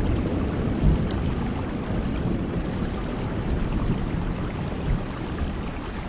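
Steady rain with a low rumble of thunder underneath that slowly dies away.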